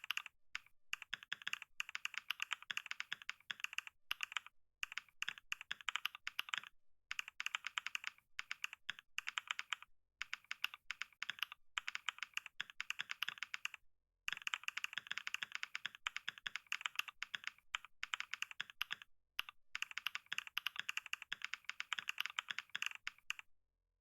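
Computer keyboard typed on rapidly and continuously, a dense run of key clicks broken by a few short pauses, stopping near the end.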